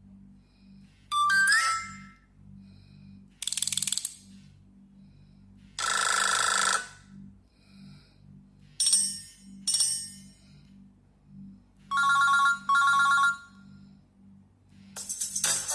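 Nokia Asha 302 mobile phone playing a run of short ringtone and alert sounds through its loudspeaker, one after another with pauses between. There is a rising chirp, several short buzzy blips, and a double beep about twelve seconds in. A longer tune starts near the end.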